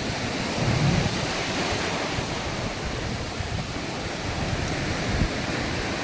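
Sea waves washing onto a sandy beach, with wind buffeting the microphone.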